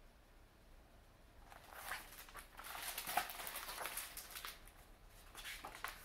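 Pages of a hardcover picture book rustling and being turned by hand, a dry papery shuffle with small clicks starting about a second and a half in, and a few short brushes near the end.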